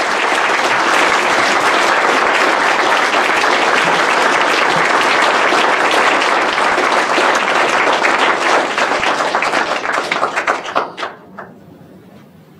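Audience applauding steadily, then thinning to a few scattered claps and stopping about eleven seconds in.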